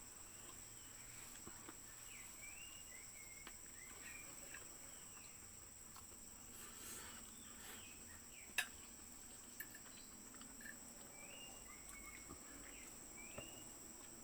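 Outdoor ambience: a steady high-pitched drone of crickets or other insects, with short bird chirps coming and going in small groups. There is one sharp click about eight and a half seconds in, and two fainter ones later.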